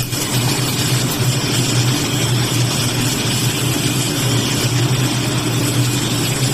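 CNC flat-bar bending machine running: a steady low motor hum with an even mechanical hiss over it.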